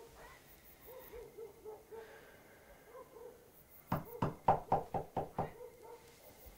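Rapid knocking on a door, about seven quick knocks in a row more than halfway through.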